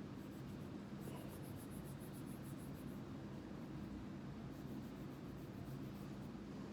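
Quick, light scrubbing strokes while cleaning a Taurus PT111 G2 pistol's parts, about eight strokes a second in two spells of roughly two seconds each, over a low steady hum.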